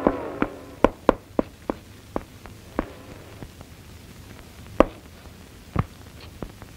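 Footsteps dubbed onto a film soundtrack: a quick run of sharp steps for the first couple of seconds, thinning to a few single steps near the end, over a faint low hum.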